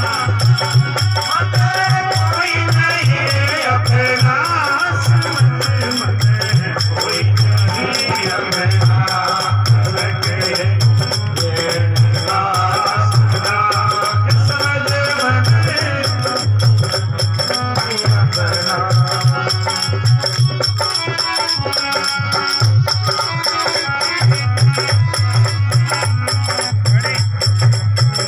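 Devotional folk bhajan played live: a man singing to a harmonium, with a dholak drum keeping a steady low beat and a shaken rattle-type percussion instrument keeping time. The singing is strongest in the first half, the accompaniment carrying on throughout.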